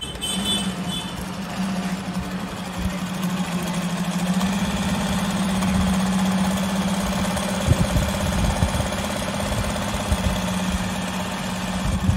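JAGKING 5330D direct-drive industrial zigzag sewing machine running steadily, stitching through a thick black strip, with a constant hum from the direct-drive motor. A few low thumps come about eight seconds in.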